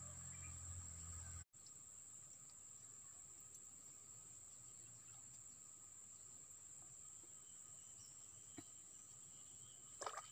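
Faint, steady high-pitched insect drone over quiet outdoor stillness, cut off for an instant about a second and a half in.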